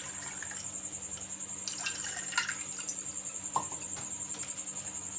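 Cold water poured from a steel pitcher over ice cubes in glasses, trickling and splashing, with a few light clicks.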